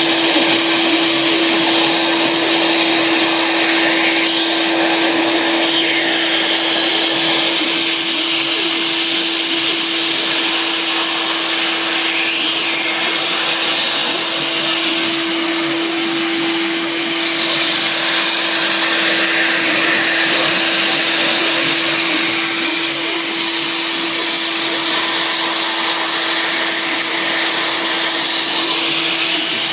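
Sieg SX2 mini mill running under CNC control, its spindle motor giving a steady whine while a 6 mm cutter mills a hardwood block with a constant hiss of cutting.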